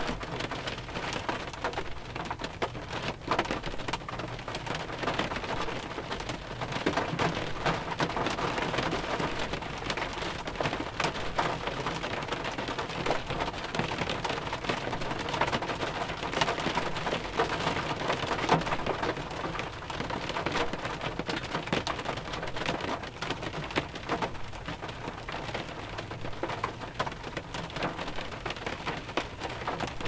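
Mild rain falling on a 2001 Pontiac Grand Prix, heard from inside the car: a steady wash of many small, sharp drop impacts on the car's body.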